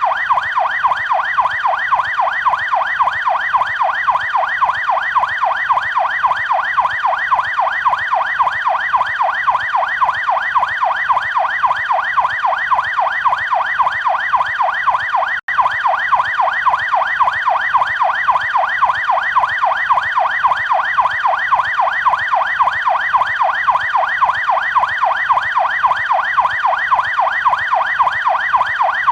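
Canadian police car siren on yelp: a rapid electronic wail sweeping up and down in pitch about three to four times a second, with a momentary break about halfway through.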